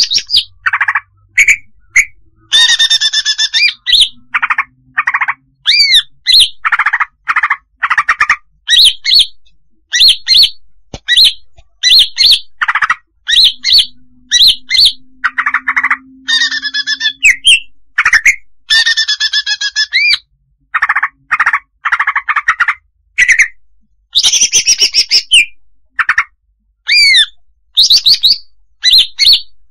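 Female greater green leafbird calling: a dense run of short calls, about two a second, mixing buzzy chattering notes with higher arched whistles and brief trills.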